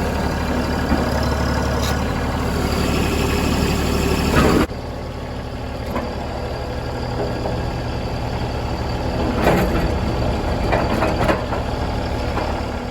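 Compact diesel tractor engine running steadily at a low drone. About five seconds in the sound changes abruptly to a lower, slightly different running sound, with a few short louder knocks later on.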